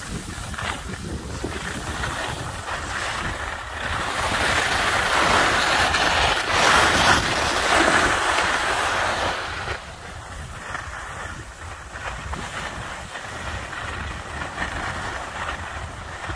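Skis sliding and scraping over packed snow, with wind buffeting the microphone; it grows louder and harsher from about four seconds in and drops back about ten seconds in.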